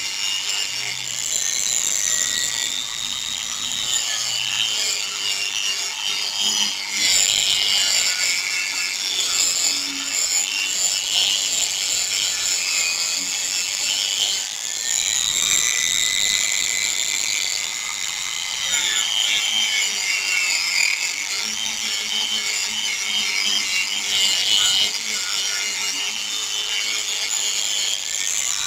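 Small handheld power sander running with a sanding disc on a wet plastic headlight lens: wet sanding. The whine is steady, with its pitch wavering up and down.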